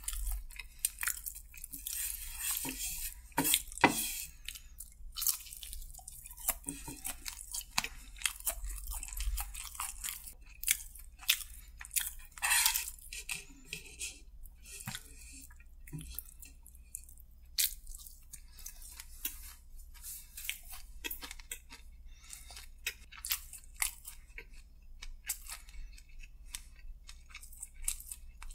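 Close-miked chewing and crunching of crispy fried food: many irregular crisp crunches, a few of them louder.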